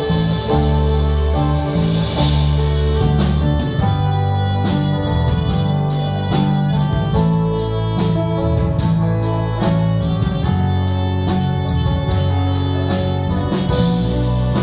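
Live instrumental worship music from a church band: sustained chords over a bass line, with a steady, evenly ticking beat from about four and a half seconds in.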